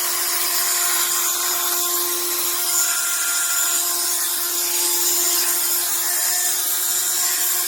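HARDELL 12V cordless mini rotary tool running steadily, a constant hum with a grinding noise from its motor, which the owner takes for a sign of the faulty motor.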